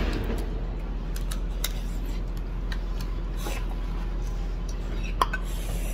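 Small clicks and crackles of lobster shell being handled and eaten by hand, over a steady low background hum, with one sharper click about five seconds in.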